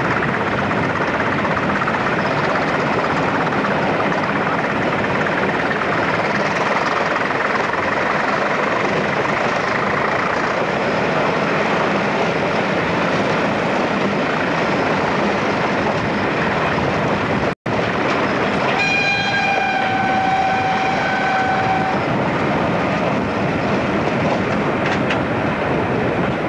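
Pair of Class 20 diesel locomotives hauling a train, heard from an open carriage window as a loud, steady rush of engine and wind noise. Just past halfway the sound cuts out for an instant, then a locomotive horn sounds one steady note for about three seconds.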